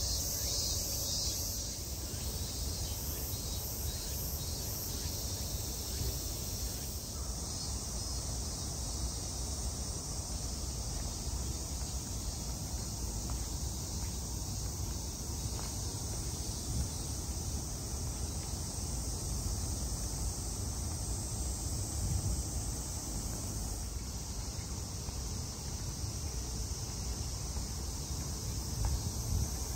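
A chorus of cicadas buzzing steadily in a high, even drone, over a steady low rumble.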